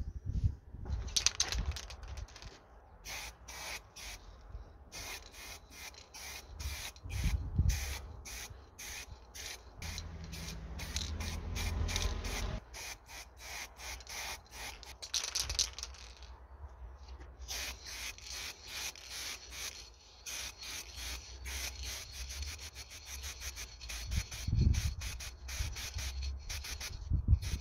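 Quick rubbing strokes, several a second, of a cloth or pad wiping along a spring-steel bow limb.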